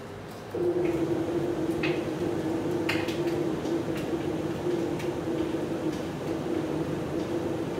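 A laundry appliance's electric motor switches on about half a second in and runs with a steady hum, with occasional light ticks and clicks.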